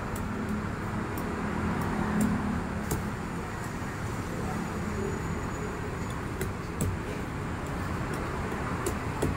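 Cleaver knife knocking and cutting into a durian's spiky husk, a few sharp irregular knocks, over a steady hum of street traffic.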